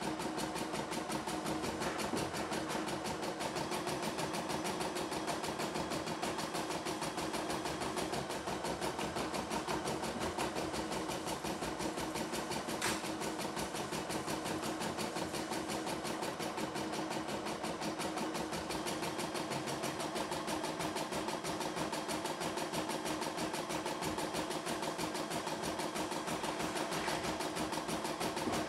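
CNY E960 computerized embroidery machine stitching steadily, its needle running at a fast even rhythm over a steady motor hum as it embroiders lettering. A single small click about halfway through.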